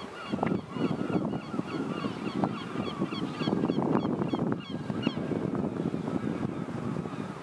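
A flock of birds calling: quick, repeated high chirps over a dense lower chatter of calls.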